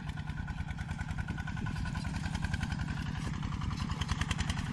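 Two-wheel tractor's single-cylinder diesel engine running steadily under load while plowing, a fast even chugging.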